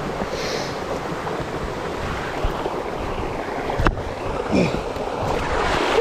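Steady rushing of creek water spilling over small waterfalls, with a sharp knock about four seconds in and a few brief bumps after it.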